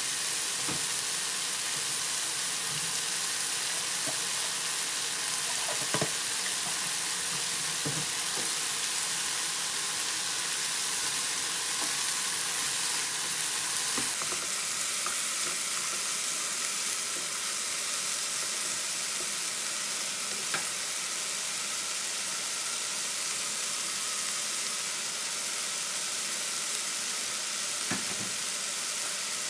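Diced pork heart and vegetables sizzling steadily in a frying pan, with a few knocks of the spatula against the pan as they are stirred. The sizzle gets brighter about halfway through.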